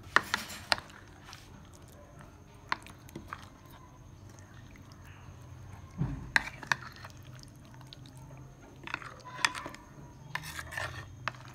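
A metal spoon mixing raw fish pieces in a thick, wet masala marinade in a bowl: wet squelching with clusters of sharp clicks as the spoon knocks against the bowl.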